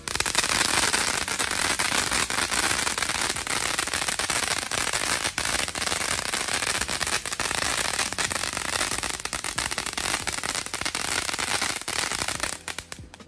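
Retro fountain firework spraying with a strong crackle: a steady rushing hiss dense with rapid snapping crackles, dying away just before the end.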